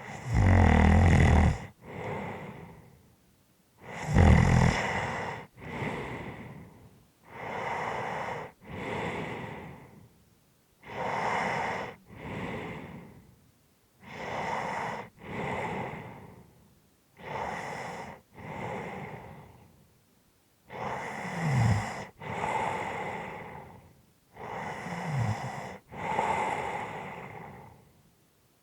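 A person snoring: slow, regular breaths about every three seconds, each an in-breath followed by an out-breath. There is a low buzzing snore on the in-breath at the start, about four seconds in and twice near the end. The other breaths are mostly plain heavy breathing.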